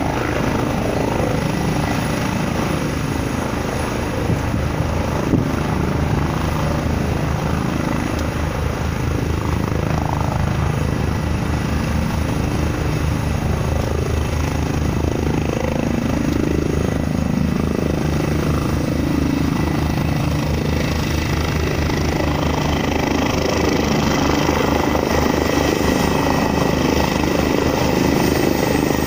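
Road and engine noise inside a moving car's cabin: a steady noise with a fast, even low flutter, and a few brief gliding sounds in the middle.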